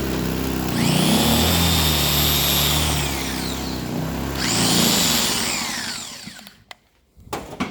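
Blackridge BRG 800 inverter generator's small petrol engine running and surging, revving up and back down twice, a sign of the stale, dirty fuel it is struggling on. Near the end the engine winds down and stops, followed by a few clicks.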